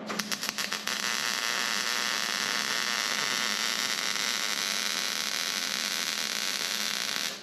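A 110-volt wire-feed welder striking an arc and running a weld. It stutters through a few quick starts in the first second, then settles into a steady, even hiss, and cuts off suddenly near the end.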